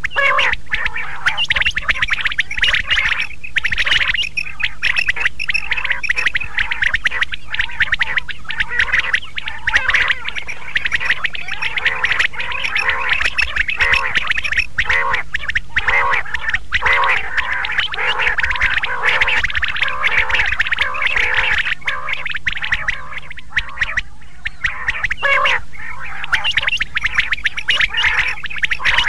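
Quail calling over and over: a dense run of short, rapid, repeated calls, many overlapping, easing a little about three-quarters of the way through.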